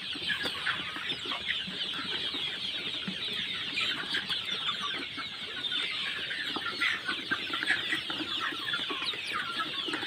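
A large flock of Sonali and deshi chickens clucking and peeping together in a shed: a dense, steady chatter of many overlapping short calls, with no single bird standing out.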